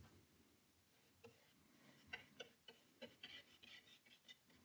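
Near silence, broken by a few faint, irregular taps and ticks of a paintbrush working in the palette and touching the paper.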